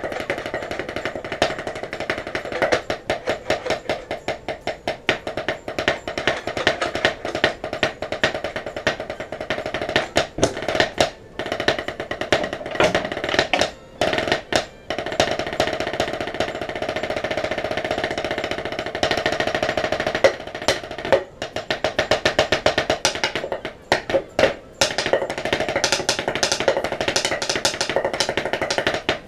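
Drumsticks played fast on a rubber drum practice pad in marching-snare style: quick rudiment patterns and sustained rolls, broken by a few short pauses.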